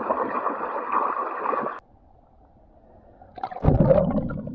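Sea water splashing hard right at the camera as a swimmer thrashes at the surface; it cuts off abruptly a little under two seconds in. About a second and a half later the sound turns into a loud, muffled underwater rumble as the microphone goes under the water.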